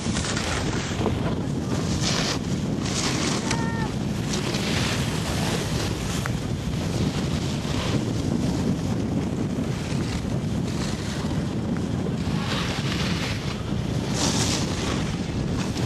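Wind buffeting a camcorder's microphone: a steady low rumble with brief gusts of hiss.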